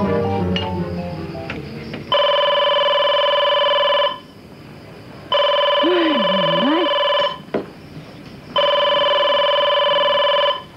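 White corded desk telephone ringing three times, each ring a steady tone about two seconds long with a pause of a second or so between. Background music fades out in the first two seconds, before the first ring.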